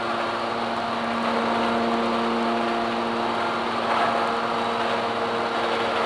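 Hydraulic power unit of a 37 kW, 200-tonne Enerpat scrap metal baler running steadily, an even hum with a constant whine and no pressing stroke.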